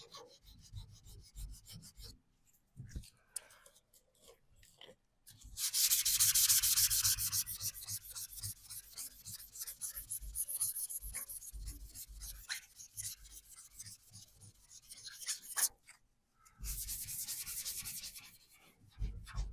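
Primer on a VW T25 van's bodywork being rubbed down by hand with an abrasive, in quick back-and-forth scrubbing strokes. The strokes are faint and broken at first, turn loud and steady about five seconds in for some ten seconds, stop briefly, then pick up again for a couple of seconds.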